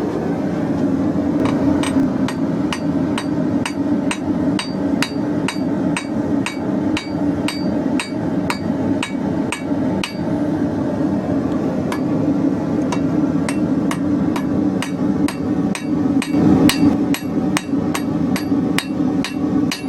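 Hand hammer striking hot steel bar on an anvil at about two blows a second, with a short pause about halfway: forging the bird's beak from square bar. A steady low rushing noise runs underneath.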